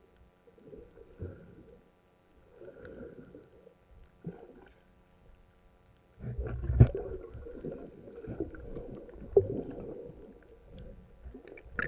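Muffled underwater sound picked up by an action camera in a waterproof housing while a snorkeler swims: soft swishes of water and movement, growing louder and busier with low rumbling and a few sharp knocks about six seconds in. A faint steady hum runs underneath.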